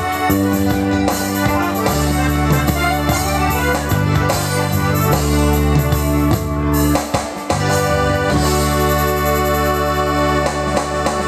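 Electronic keyboard playing an instrumental R&B passage with no vocals: organ-like held chords and a steady bass line over the keyboard's own built-in rhythm backing.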